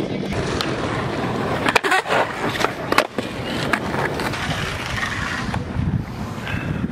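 Skateboard wheels rolling over concrete, with a few sharp board clacks about two and three seconds in.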